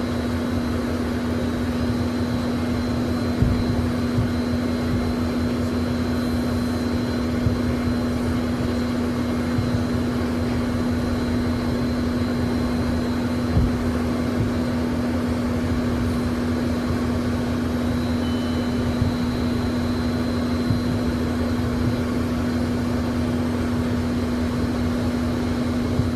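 Inside the cabin of a Learjet taxiing: its jet engines give a steady hum with a faint high whistle over a low rumble. A few brief thumps come through, about three and a half, seven and a half and thirteen and a half seconds in.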